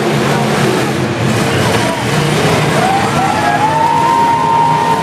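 Demolition derby cars' engines running loudly together over crowd noise. About three seconds in, a spectator close by lets out a long yell that rises and then holds.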